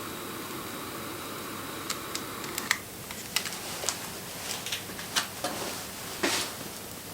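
Wood fire crackling: a steady hiss of burning with sharp pops and snaps, which come more often from about two seconds in.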